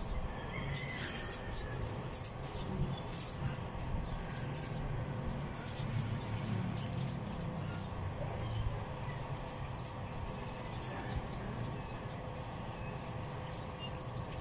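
Outdoor ambience: birds chirping in many short, high calls over a steady low rumble and a faint steady hum.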